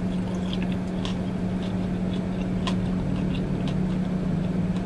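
Chewing a mouthful of dumpling, with small wet mouth clicks, over a steady low hum inside a parked car.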